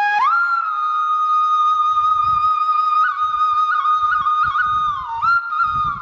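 Background music led by a flute holding one long note, with quick ornamental flicks in pitch and a dip about five seconds in.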